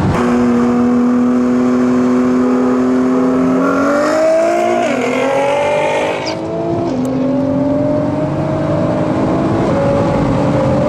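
Hard acceleration of the VW Golf R HGP 3.6 biturbo's engine, heard from inside its cabin over road and wind noise. The engine note holds steady for a few seconds, then climbs in pitch, dropping sharply at upshifts about five, seven and ten seconds in.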